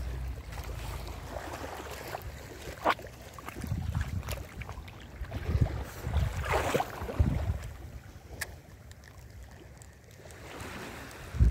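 Wind rumbling on the microphone over shallow water sloshing, with scattered clicks and knocks as an angler moves on a rocky reef flat. About six and a half seconds in comes a louder rushing burst as he casts a spinning rod.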